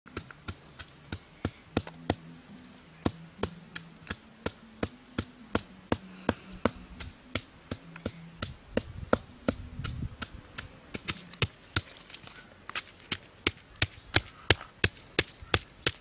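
Wooden pestle pounding red chillies in a coconut-shell bowl: a steady run of sharp knocks, about three a second.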